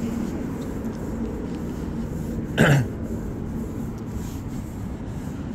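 A single short cough from a person, about two and a half seconds in, over a steady low background rumble.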